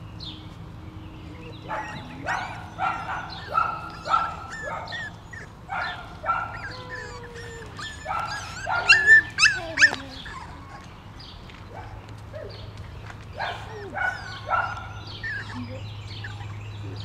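Five-week-old puppies yipping and barking in play: a run of short high-pitched yips with a few sliding whines among them. The loudest yips come about nine seconds in, there is a short lull, and a few more yips follow.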